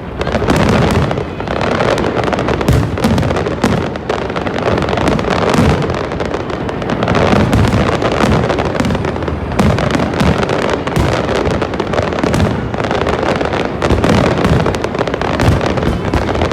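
Fireworks display going off in a rapid, continuous barrage of overlapping bangs and crackles, many bursts a second.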